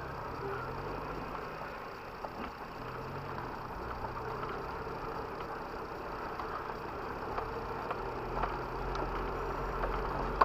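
Off-road 4x4's engine running at low speed on a trail, its pitch rising and falling a little, with a deeper rumble coming in near the end.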